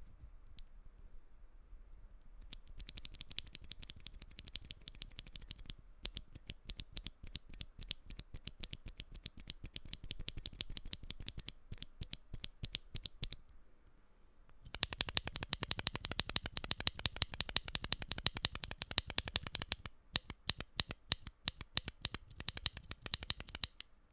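Typing on a custom mechanical keyboard with tactile switches: quick runs of clacky keystrokes. A short pause comes at about 6 s and another at about 14 s, and a faster, louder burst of typing runs from about 15 to 20 s.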